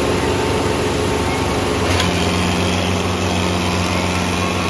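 Mahindra Arjun tractor's diesel engine running hard under heavy load as it drags a weighted trailer in a tractor pulling contest. The steady engine note has a sharp click about two seconds in, after which a deeper steady tone comes in.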